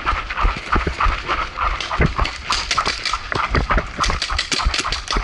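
Sharp, irregular pops and clatter, some in quick runs, with hard breathing close to the microphone: a paintball player on the move, with markers firing.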